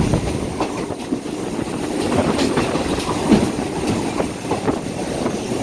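Passenger train carriage running along the track, heard through an open window: the steady rumble of wheels on rails with irregular clacks and knocks from the running gear.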